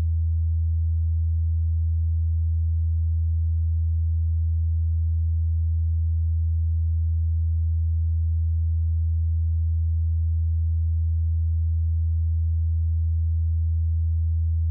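Steady, low pure sine tone from a WMD/SSF Spectrum VCO's sine output, holding one pitch throughout.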